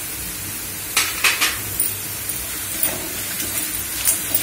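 Tempering of onion, garlic and curry leaves sizzling in hot oil in a kadai, with a metal spatula clinking and scraping against the pan several times from about a second in as it is stirred.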